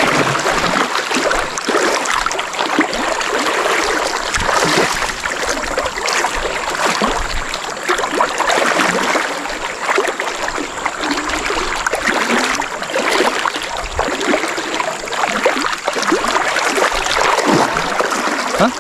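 Fast river current rushing and gurgling close at hand, a steady wash of moving water.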